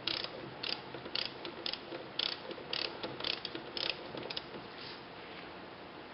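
Ratcheting torque wrench tightening the fill plug on a motorcycle final drive: short bursts of ratchet clicks, about two strokes a second, stopping about four and a half seconds in.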